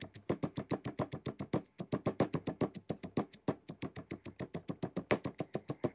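Stone pestle pounding Thai curry paste and shallots in a granite mortar: rapid, even strikes, about six a second.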